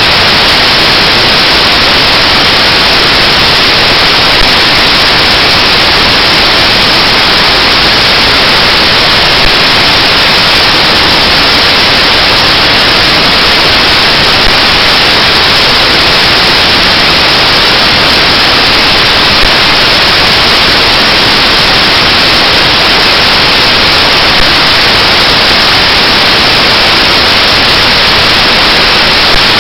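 Loud, unchanging static hiss filling the audio track, with a small click about every five seconds.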